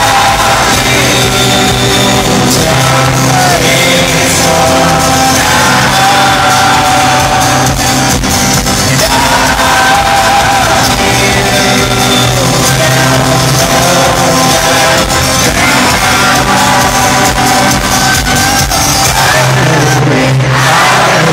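Folk-rock band playing live in an arena with a sung lead vocal, recorded loud from among the audience on a phone microphone, with the crowd shouting along.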